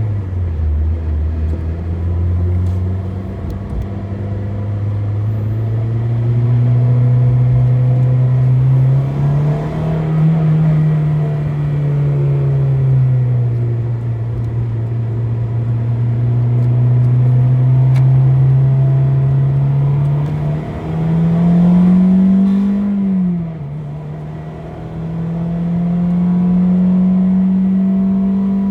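Honda Civic EP3's K20A2 four-cylinder engine running under load, its pitch rising and falling slowly as the car accelerates and eases off. About 21 seconds in, the pitch climbs quickly, then drops sharply at a gear change.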